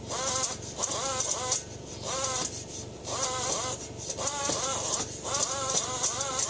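Power-driven stone cylinder hone working inside a two-stroke dirt-bike cylinder in a series of short bursts, the motor's pitch rising and falling with each burst over a gritty scraping hiss of the stones on the lubricated bore, which is being lightly cross-hatched for new rings.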